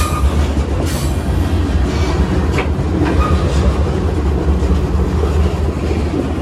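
Freight train rolling along, heard from aboard a car: a steady low rumble with a few sharp clacks of the wheels over rail joints.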